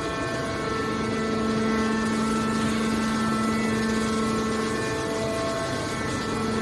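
Hydraulic can baler's motor and pump running steadily, a constant hum with a whine of overtones above it.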